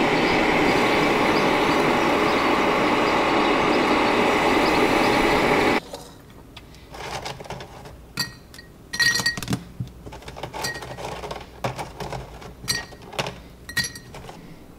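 Electric food dehydrator running with a steady fan noise, which stops abruptly about six seconds in. Then pieces of dried beef jerky are dropped into a glass mason jar, knocking against the glass in scattered clinks, some with a short ring.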